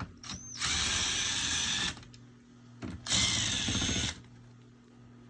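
Cordless drill-driver with a 1/4-inch hex bit running in two bursts of about a second each, backing out mounting screws, with a high whine over the motor noise.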